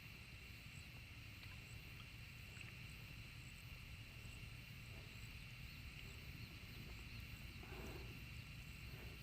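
Faint outdoor ambience: a steady high-pitched insect drone over a low rumble, with one brief soft noise about eight seconds in.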